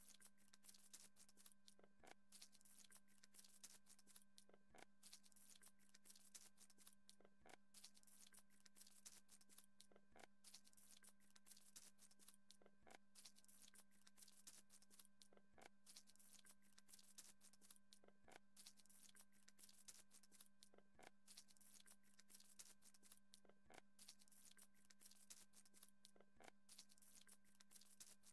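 Near silence: a faint steady hum with faint clicks and rustles of plastic Lego pieces being handled. A soft tick comes regularly, about every two and a half seconds.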